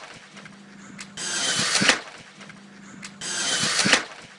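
A high-speed RC car's motor whine builds quickly as it rushes in, then cuts off suddenly with a sharp crack of impact. This happens twice, about two seconds apart.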